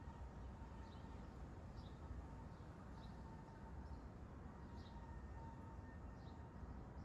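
Small birds chirping faintly, with short high chirps coming roughly once a second, over a low steady background hum.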